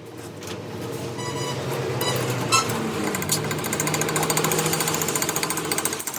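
A power tool or workshop machine running with a fast, even rattle, building up over the first two seconds and then holding steady.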